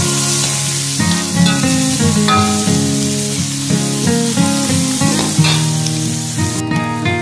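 Food sizzling in a hot wok as it is stir-fried with a metal ladle, a steady frying hiss that cuts off near the end, with acoustic guitar music playing over it.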